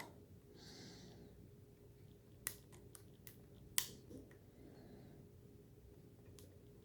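Faint, sparse clicks of a lock pick and tension tool working the pin stack of a five-pin Master Lock padlock. There are a few sharp ticks, the loudest about four seconds in.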